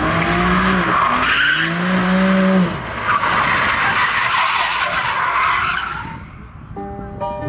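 A sports sedan drifting: the engine revs up twice in quick surges while the tyres squeal and hiss as it slides sideways. The tyre noise dies away near the end, and music starts.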